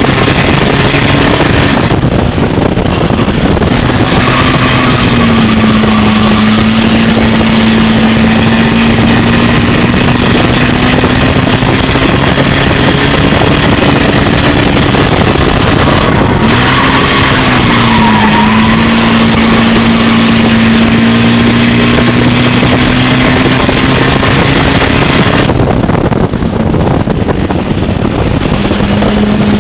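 Race car engine with an automatic transmission, heard from inside the cockpit at racing speed, running hard throughout. Twice its pitch bends up and settles to a lower note, then climbs slowly again.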